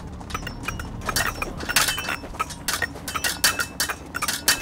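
Wooden sticks clacking against each other in a stick fight: many sharp, irregular knocks in quick succession, starting about a second in.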